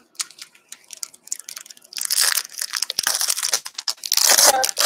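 A trading-card pack's foil wrapper being torn open and crinkled in the hands, loudest in the second half. Before that come light clicks and rustles of cards and packs being handled.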